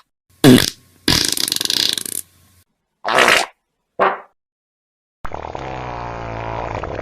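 A string of fart sound effects: four short blasts with silent gaps between them, then a long drawn-out one starting about five seconds in.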